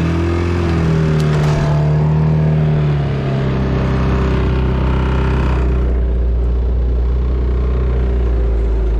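Isuzu C223 2.2 L diesel in a Takeuchi TL130 tracked skid steer running at high revs under load. The pitch wavers and shifts over the first few seconds, then holds steady. The engine has to be held at high idle to move, because it stalls at low idle or when pushed forward too fast.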